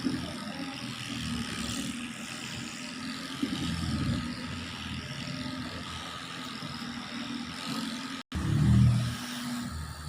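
Handheld electric 'dolphin' infrared massager running: a steady low motor hum that wavers in level, cutting out for an instant about eight seconds in and returning louder.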